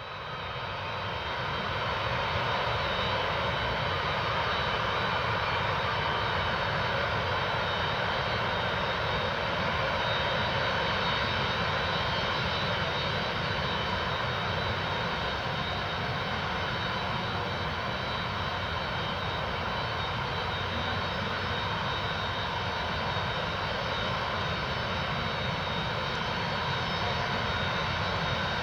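Antonov An-124-100's four Progress D-18T turbofan engines running steadily, a broad jet rumble with a high fan whine on top; the sound fades in during the first couple of seconds.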